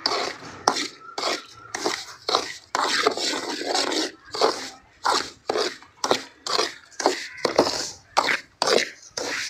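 A spatula scraping and stirring semolina roasting in ghee in a pan, in quick rasping strokes about twice a second, with a longer stretch of scraping around the middle.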